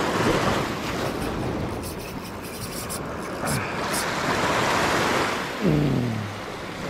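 Sea surf washing and breaking over shore rocks, with a man giving a few short strained grunts, falling in pitch, as he fights a fish on the rod; a few sharp ticks come in the middle.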